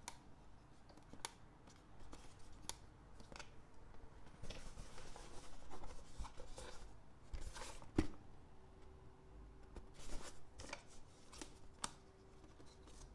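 Clicks and rustles from handling a plastic auto-darkening welding helmet. There are scattered light clicks, a longer rustle about halfway through, and the sharpest click about two-thirds of the way in, after which a faint steady hum begins.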